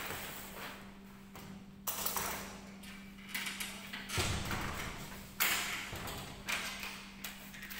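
Scattered knocks and rustles of someone moving about with a handheld camera in a large hard-floored room, over a steady low electrical hum.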